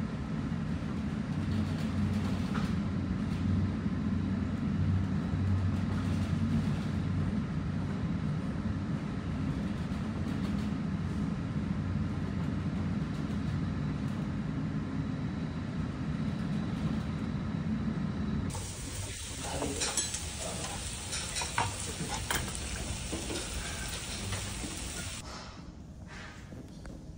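Steady low rumble of a ship underway at sea, engine drone mixed with wind noise. About two-thirds of the way through it cuts off to a quieter sound with scattered clicks and knocks.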